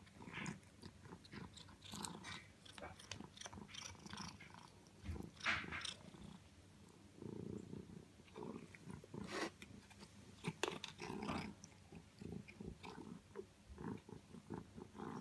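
Domestic cat chewing crumbly food, with irregular crisp crunches and mouth clicks as it eats and licks.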